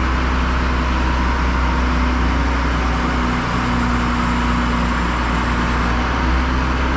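A truck engine running steadily, with a low hum and a few steady tones, as the crane holds the concrete pump over the chassis.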